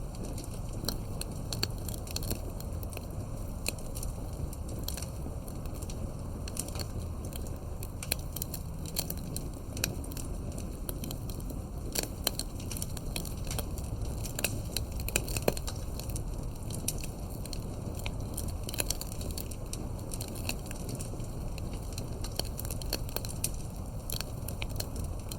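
Wood fire burning, with a steady low rumble under frequent, irregular crackles and pops.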